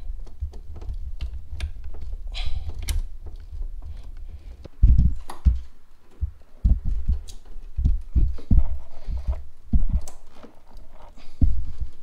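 Hands working a new EVAP purge valve, hose and electrical connector into place in a Ford Focus engine bay: irregular dull thumps and knocks with short plastic clicks, over a low rumble in the first few seconds.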